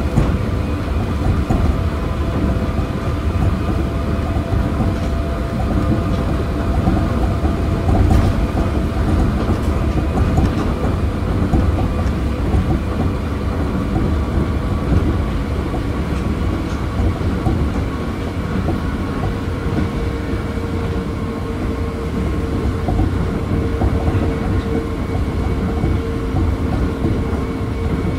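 Running sound inside an Osaka Monorail 1000 series car with field chopper control: a steady rumble of the rubber-tyred bogies on the track beam under even whining tones from the traction equipment, with a new tone coming in about two-thirds of the way through.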